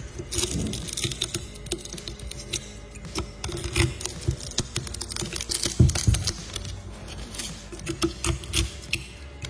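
Shattered iPhone back glass crackling and snapping in irregular clicks as a metal blade scraper chips it off the phone.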